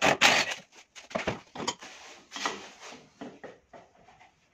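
Workshop handling noise: a short loud burst of noise at the start, then scattered clicks, knocks and scraping as a cordless drill and hand tools are handled and set down on the workbench around a steering rack held in a vise.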